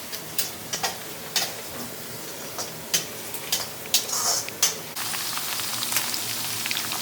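Sliced onions frying in hot oil: a steady sizzle with scattered sharp crackles and pops of spattering oil, the sizzle growing louder about five seconds in.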